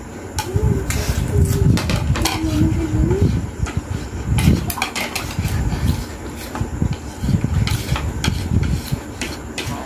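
Eating at a table: chopsticks clicking against plates and noodles being eaten, heard as many short sharp clicks over a low rumble. A wavering hum sounds during the first three seconds or so.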